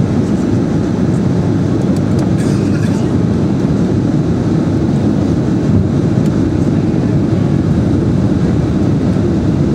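Inside the cabin of a Boeing 767-300ER on its landing approach: steady, loud, low-pitched jet engine and airflow noise, heard from a window seat over the wing.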